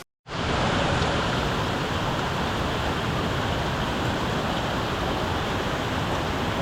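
Steady rushing of water falling at Kuang Si Waterfall, an even unbroken noise that starts suddenly just after the beginning on a cut.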